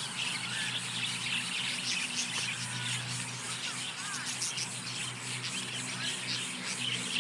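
A flock of small birds chirping and chattering continuously, with a few short whistled notes, over a steady low hum.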